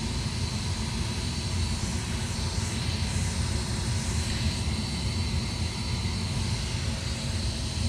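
Ducane gas furnace's fan motor running with a steady drone during an ignition attempt. The gas valve is open but the igniter does not glow, so the burners do not light: the igniter has failed.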